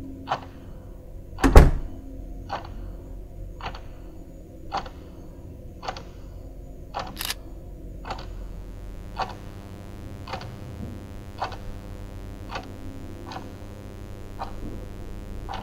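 Slow, even clock-like ticking, about one tick a second, with a heavy thump of a door shutting about a second and a half in. A short hiss comes near seven seconds, and from about eight seconds a steady hum sits under the ticks.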